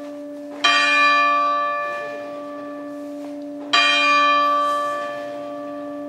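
Church bell of Hakodate's Motomachi Catholic Church ringing the 6 p.m. bell: two strikes about three seconds apart, each ringing on and slowly fading over a lingering low hum.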